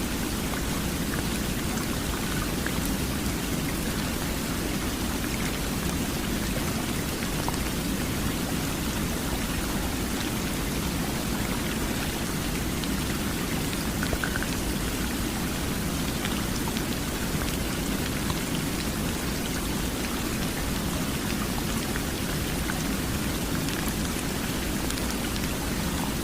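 Steady rain: an even, unchanging hiss with a low rumble underneath and many small drop ticks scattered through it, mixed as a soft pink-noise sleep sound.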